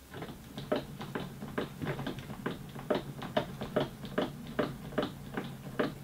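Standing desk being adjusted: a quick run of clicks, about four or five a second, over a low steady hum.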